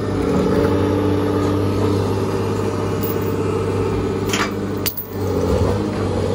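Nissan Sentra engine running steadily with an even hum, with a couple of sharp clicks and a brief dip about five seconds in.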